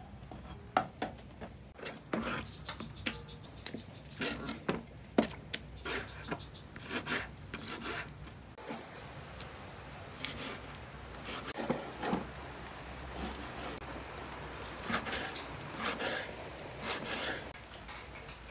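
A Chinese cleaver slicing raw lamb on a wooden cutting board, the blade knocking on the board in irregular taps, with some scraping of the meat and board in between.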